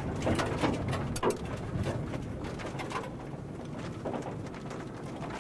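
Strong wind near a large tornado, an uneven low rumble and buffeting, with scattered sharp knocks and taps throughout, more of them in the first half.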